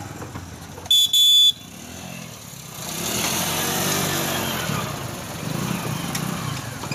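Motorcycle engines running at low speed as the bikes are ridden and pushed along a railway track, growing louder about three seconds in. A loud, short double beep, like a motorcycle horn, sounds about a second in.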